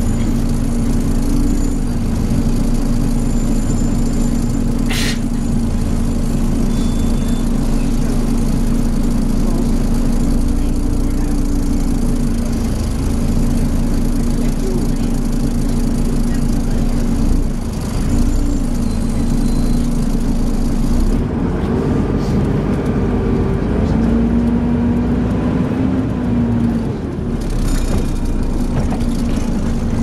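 Volvo B7TL bus heard from inside the saloon while under way: the engine runs with the steady whine of its cooling fan, the 'hoover' sound these buses are known for. The whine bends in pitch now and then, rising as the engine picks up between about 22 and 26 seconds in, with a sharp click about five seconds in.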